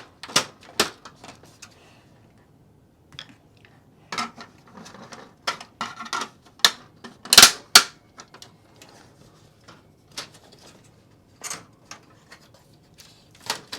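Plastic and metal parts of a stereo unit clicking, knocking and rattling as a component is worked out of the casing during disassembly, with two sharp snaps about seven and a half seconds in as the loudest sounds.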